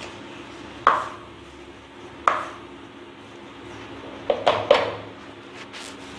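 A cooking spoon knocks against a clay cooking pot (mann chatti) while bitter gourd is stirred as it fries. There are five sharp knocks, each with a short ring: one about a second in, another a second and a half later, and three in quick succession near the end, over a steady low hiss.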